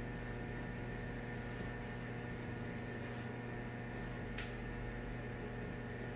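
Steady machine hum holding several fixed tones, with two faint short ticks, one about a second in and one just past four seconds.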